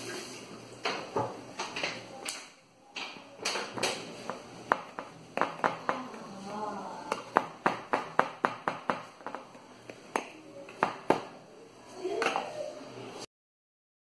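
Metal spoon tapping and clinking against an aluminium sheet pan while a milky soak is spooned over a cake: irregular sharp taps, several a second in places. It cuts off suddenly near the end.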